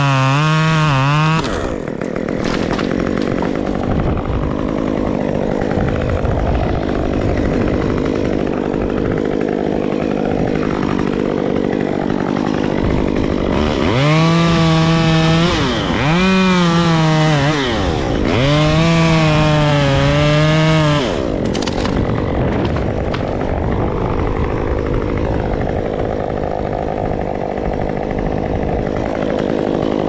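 Chainsaw revved to full throttle in bursts of a few seconds: once at the start and three times close together from about 14 to 21 seconds in. Between the bursts it runs lower and rougher.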